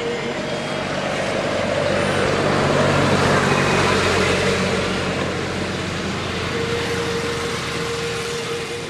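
Motor vehicle driving past: engine hum and road noise swell to a peak about three seconds in, then slowly fade, with a thin steady whine near the end.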